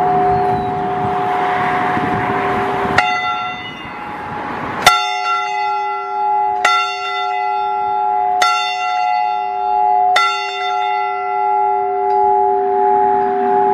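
A single church bell struck five times, about every two seconds, its hum ringing on between strokes and dying away slowly after the last one. It is being tolled as part of 100 commemorative strokes.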